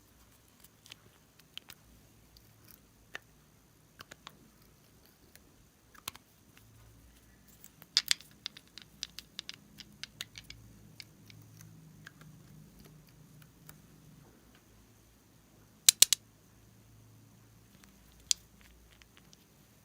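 Scattered small clicks and crackles from hands working slime and piping bags, with sharp double snaps about eight and sixteen seconds in and a quick run of little crackles between them.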